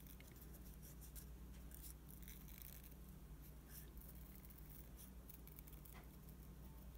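Small craft scissors faintly snipping through thin paper in short, scattered cuts, over a low steady hum.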